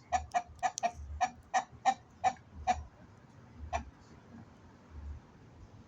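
Rooster clucking: a quick run of about ten short, sharp clucks, around three a second, that stops about three seconds in, with one last cluck about a second later.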